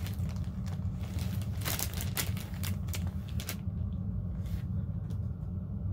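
Clear plastic wrapping crinkling as a book is pulled out of it, a run of sharp crackles that stops about three and a half seconds in. A steady low hum runs underneath.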